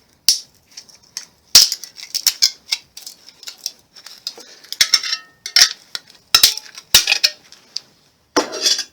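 Sheet-steel casing of a fluorescent light ballast being prised off along its spot welds with a hand tool: sharp metallic snaps and clinks at irregular intervals, with light scraping between and a denser metal clatter near the end.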